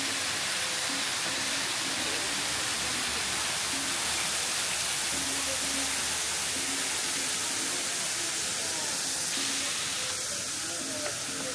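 Several thin waterfalls pouring down a stone wall into a pool: a steady hiss of falling water, easing slightly near the end.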